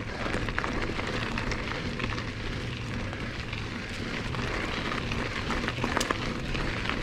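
Mountain bike tyres rolling over a gravel road: a steady crunching hiss with scattered small clicks of stones, and one sharper click about six seconds in.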